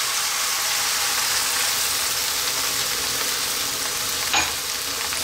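Stir-fried vegetables and sauce sizzling steadily in a hot wok as water is added. There is a single light knock about four seconds in.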